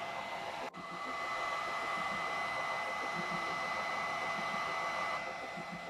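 Hair dryer blowing steadily with a high whine. There is a momentary break less than a second in, and the sound thins a little near the end.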